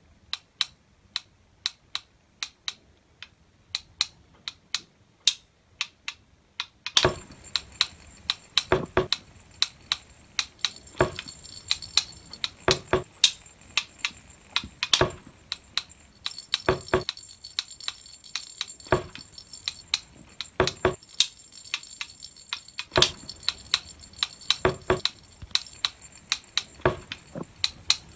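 A homemade percussion instrument played in a rhythm. It starts with light, even taps, about three or four a second. About seven seconds in, louder strikes join in with lighter taps between them, and a steady high ringing sits over them.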